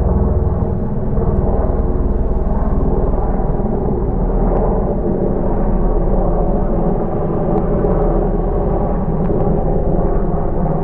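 A loud, steady rumble with a droning hum running through it.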